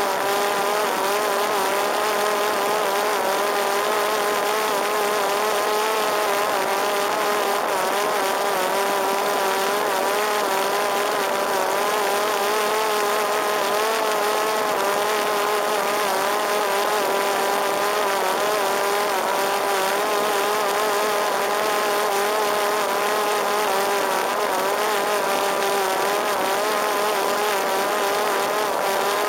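Parrot Disco fixed-wing drone's electric motor and pusher propeller whining steadily in flight, heard from on board, the pitch wavering slightly over a steady hiss.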